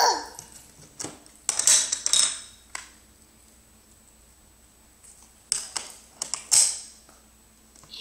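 Plastic alphabet letter pieces clicking and clattering as they are picked up and set down on a wooden table, in two clusters: about a second in and again about five and a half seconds in.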